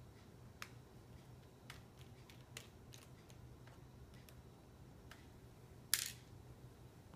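Small sharp clicks of a screwdriver and screws being worked out of a laptop screen's mounting, a few scattered ticks about a second apart, with one louder short clatter about six seconds in.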